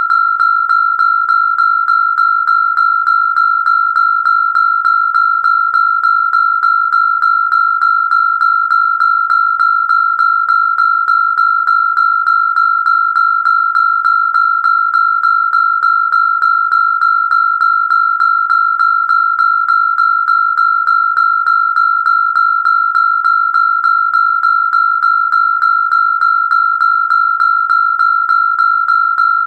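Electronic siren sounding one steady, high-pitched tone that does not rise or fall, with slight regular pulses about three times a second.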